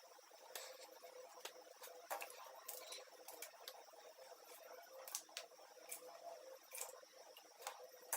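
Faint, scattered small clicks and ticks over near silence: hands handling a UTP network cable and its RJ45 connector.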